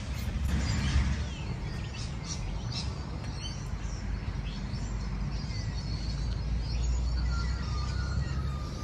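Birds chirping and calling, a scatter of short gliding calls, over a steady low rumble.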